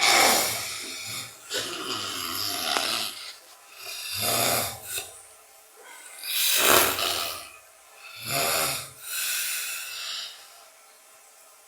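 A man snoring heavily in his sleep, pig-like: about six deep, rasping snores one to two seconds apart, some drawn out longer than others.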